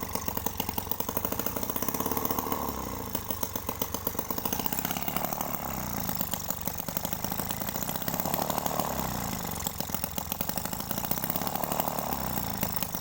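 Homemade mini two-stroke engine built from a refrigerator compressor, running with rapid, even firing. Its note sags and picks up again about every three seconds.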